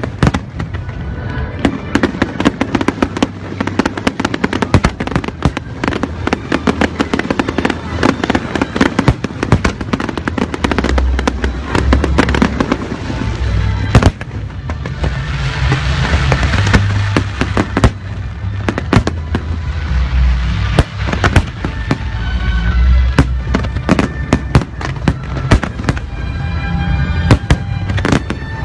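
Fireworks display: rapid bangs and crackles with deep booms throughout, and a dense spell of crackling about halfway through, over music.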